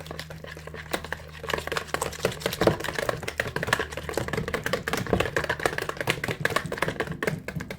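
A wire whisk clicking rapidly and unevenly against the sides of a bowl as softened butter and cream are whisked together, with a steady low hum underneath.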